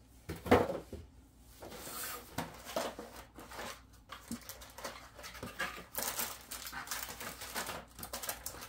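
A thump about half a second in, then paper and cardboard packaging rustling as they are handled, busiest near the end.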